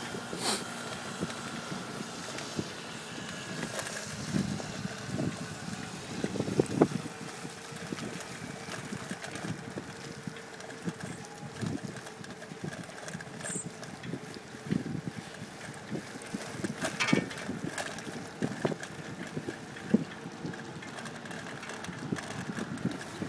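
Wind buffeting the microphone in irregular gusts and thumps while riding along a paved bike path, over a steady low hum from moving along.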